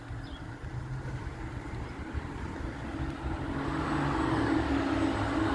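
Steady mechanical hum from an engine or motor, with two low steady tones, growing louder over the last two seconds or so.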